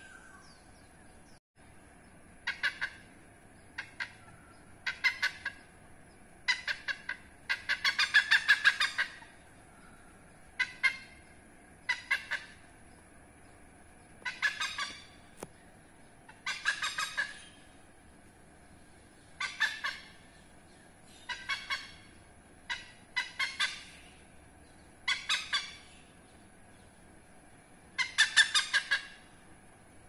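Oriental pied hornbill calling: short bursts of rapid cackling notes repeated every second or two, the longest burst about eight seconds in.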